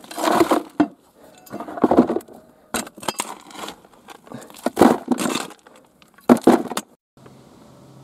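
Short-handled shovel scraping up loose soil and stones and tipping them into a plastic bucket, about five scoops in a row, with stones clinking.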